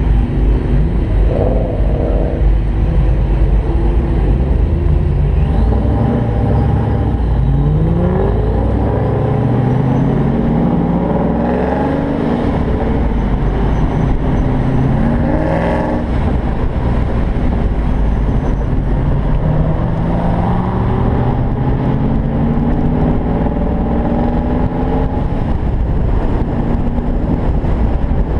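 Car engine accelerating through the gears, its pitch rising in several sweeps and dropping back at each upshift, under a steady low wind rush from driving with the top down.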